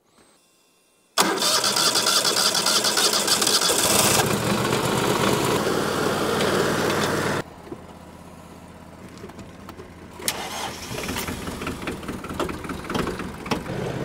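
A cold engine, the Wood-Mizer LT40 sawmill's, starting in freezing weather: it kicks in suddenly about a second in and runs loudly. About seven seconds in the sound drops abruptly to a quieter engine running, which grows louder again near the end.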